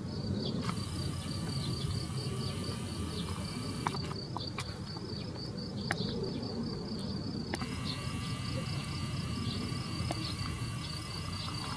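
Insects chirping, a high pulse repeating about four times a second, over a steady low rumble, with a few sharp clicks.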